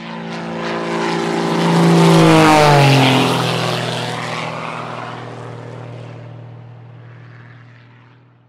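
Single-engine propeller airplane flying past: the engine and propeller sound swells to its loudest two to three seconds in, drops in pitch as it goes by, then fades away.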